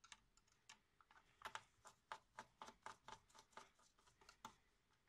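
Faint, rapid clicking of a Phillips screwdriver turning out small laptop heatsink screws, about four or five clicks a second, stopping about four and a half seconds in.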